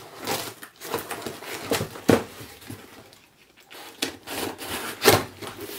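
Large cardboard shipping box being opened by hand: irregular crackling and rustling of cardboard and packing tape, with two sharper snaps about two seconds in and near the end.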